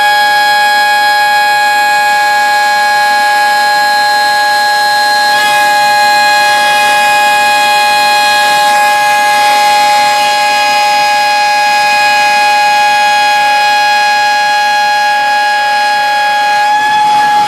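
Zünd cutter's router spindle at 50,000 rpm milling a sheet of Dibond aluminium composite panel: a loud, steady whine made of several high tones at once. The mix of tones shifts a little about five and nine seconds in and again near the end.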